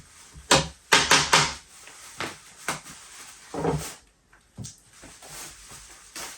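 Kitchen handling noises while raw chicken is prepared for a crock pot: a quick run of sharp knocks and rustles about a second in, then a few scattered knocks that thin out in the second half.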